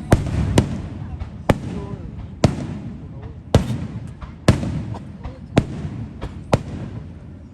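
Fireworks display: aerial shells bursting in a run of about eight sharp bangs, roughly one a second, each trailing off in a low rumbling echo.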